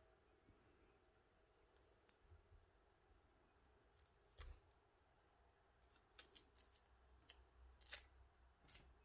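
Faint handling noise of a small Li-ion battery pack: a few short, sharp clicks and rustles of cells, wires and circuit board being turned over by hand, more of them in the second half, over a quiet room hum.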